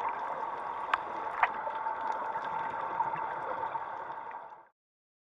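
Underwater ambience recorded by a camera in its housing: a steady hum with a constant tone through it and scattered sharp clicks, two of them louder, cutting off suddenly near the end.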